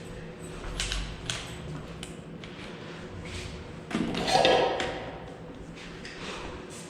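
Light taps and clicks of metal parts and tools being handled, with one louder ringing metallic clank about four seconds in, over a faint steady hum.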